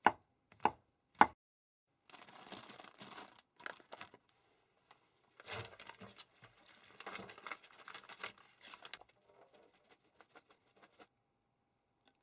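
Three sharp knocks, then crinkling and rustling of something like plastic wrap or a bag being handled, in two stretches with small clicks in between.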